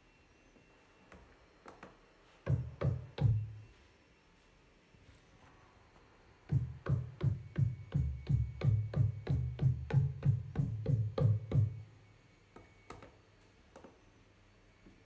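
Deep drum-machine hits played from the pads of a Native Instruments Maschine Studio: four hits about two and a half seconds in, then after a pause a fast run of about four hits a second lasting some five seconds.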